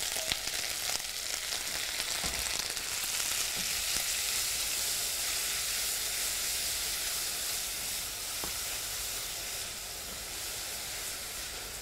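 Shredded leeks sizzling in foaming butter in a stainless steel pan as they start to sweat, stirred with a spatula, with a few faint clicks. The sizzle eases slightly near the end.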